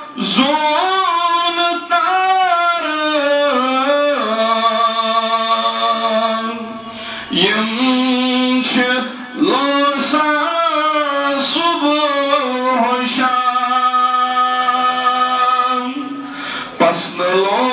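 A man singing a naat, a devotional hymn in praise of the Prophet, solo into a microphone, in long ornamented phrases with drawn-out held notes and short breaks between lines.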